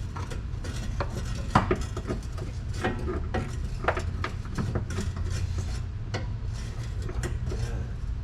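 Steel sockets, extension and ratchet clinking and clanking as a socket set is handled and fitted onto a 1/2-inch drive bar. The clicks are irregular and sharp, over a steady low hum.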